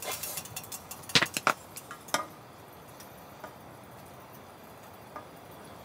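Stainless steel pot set down on a wooden trivet, its metal handle clinking: a cluster of sharp clanks about a second in and one more clink a second later, then a few faint taps.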